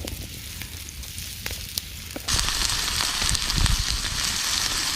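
Potatoes frying in oil in a pancake pan over a campfire: a quiet sizzle with scattered sharp ticks, then the sizzle suddenly gets much louder a little over two seconds in and stays up.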